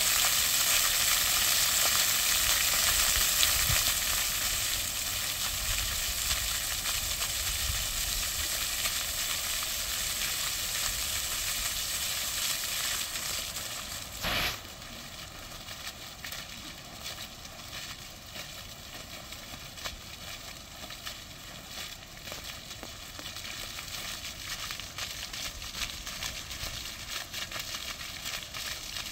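Plaza floor fountain with many water jets splashing onto paving, a steady hiss of spray. About halfway through most of the jets shut off with a brief burst, and the sound drops to the lighter splashing of a single small jet.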